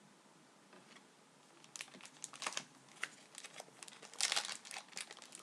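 Crinkling and rustling of a hockey card pack's wrapper and cards being handled. It is quiet at first, then comes as quick crackly bursts starting just under two seconds in, loudest about four seconds in.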